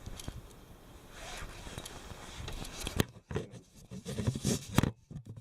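Handling noises: scraping and rubbing, then a sharp click about three seconds in followed by a run of uneven clattering knocks.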